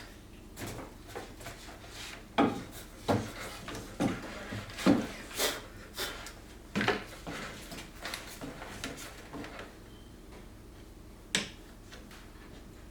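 Handling sounds from a cordless track saw and wood: about a dozen sharp knocks and clicks with some rubbing over the first ten seconds, then one last knock near the end. The saw's motor is not running.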